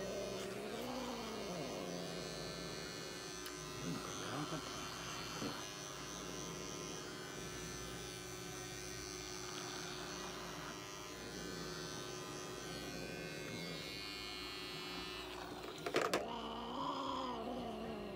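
Cordless electric pet clippers running steadily as they shave matted fur off a long-haired cat, then switched off with a click about 16 seconds in.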